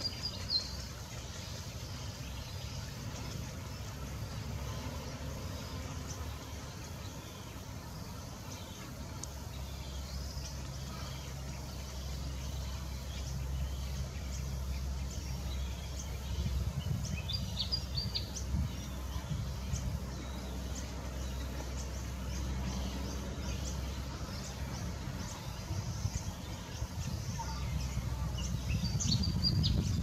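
Outdoor background with a steady low rumble, and small birds giving short high chirps in brief clusters near the start, about halfway through and near the end.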